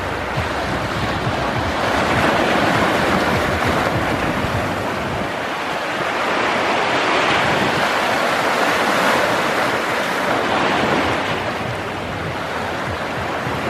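Sea waves breaking on rocks: a continuous rushing wash of surf that swells and eases every few seconds.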